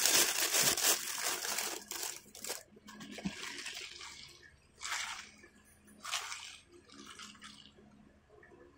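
Plastic bag rustling and crinkling as it is handled, loudest for the first two to three seconds, then two shorter rustles about five and six seconds in.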